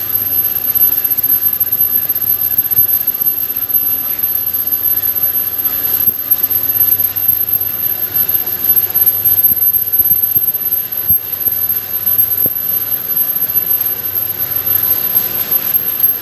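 Engine lathe running steadily while it turns a long steel pipe and faces the flange plate welded to its end: a continuous machine noise with a steady high-pitched whine over it and a few faint clicks.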